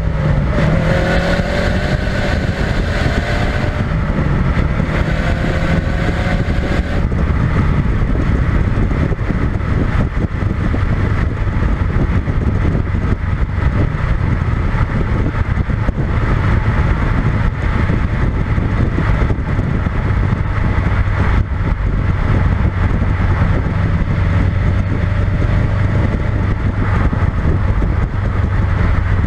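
Subaru WRX STI's turbocharged flat-four engine through its stock exhaust, heard from under the car: the engine note rises over the first few seconds as the car accelerates, then settles into a steady low drone while cruising, with road noise.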